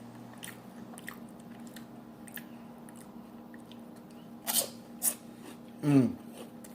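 Close-miked mukbang eating: chewing a cheeseburger and chips with soft wet mouth clicks, two louder crunchy bites about four and a half and five seconds in, and a short falling hum near the end.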